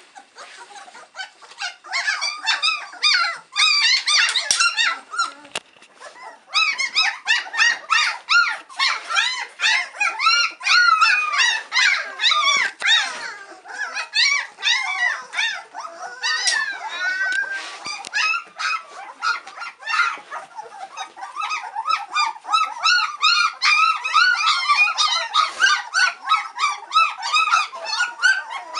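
A litter of three-week-old White Swiss Shepherd puppies whining and squealing together, many short high-pitched cries overlapping, with a brief lull about six seconds in. These are hungry puppies impatient for their mother's feed.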